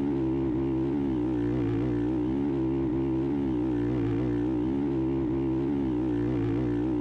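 Looped motocross bike engine sound sample playing back at a steady engine speed, the pitch wavering slightly and regularly, with no rise or fall in revs.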